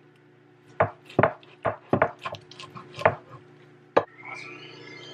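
Chef's knife slicing a cooked tri-tip roast, the blade knocking on a wooden cutting board in an irregular series of sharp taps, with a thin rising squeal near the end.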